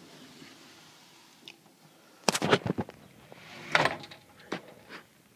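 A door being worked: a quick cluster of knocks and rattles about two seconds in, then a short slide ending in a knock, and two single knocks near the end.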